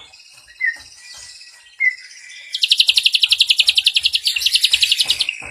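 Ashy drongo singing: two short rising whistled chirps, then a loud, very fast trill of about a dozen notes a second lasting nearly three seconds, the long 'nembak' trill prized by bird keepers.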